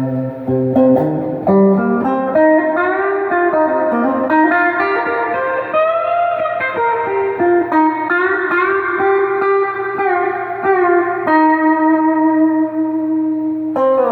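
Donner DST200 electric guitar on its full bridge humbucker, played through an overdrive pedal: a lead phrase of single notes with string bends and long sustained notes, the last held note stopping near the end.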